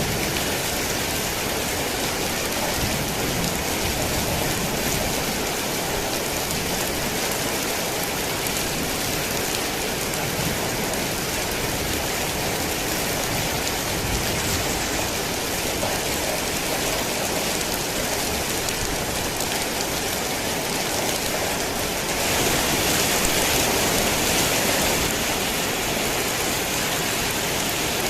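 Heavy rain falling steadily as a dense, even hiss, with a short surge in intensity near the end.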